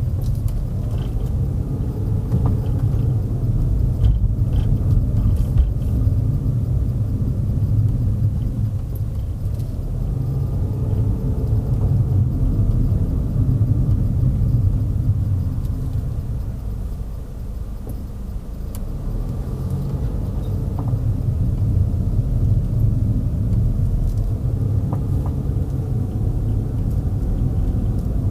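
A car being driven, heard from inside: a steady low road-and-engine rumble, with the engine note rising and falling gently several times. The rumble eases briefly about two-thirds of the way through.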